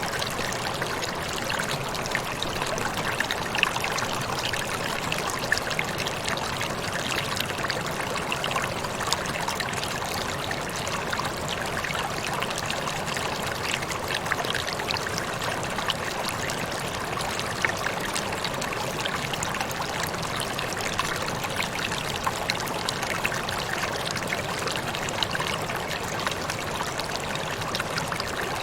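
Small waterfall or cascade pouring and splashing steadily, with the busy trickling and splattering of water over rocks.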